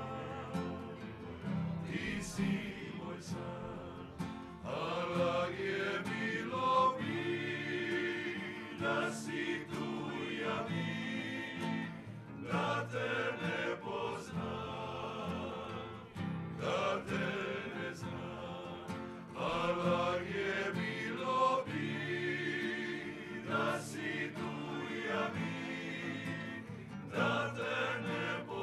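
Dalmatian klapa: a group of men singing a song in close harmony, accompanied by strummed acoustic guitars.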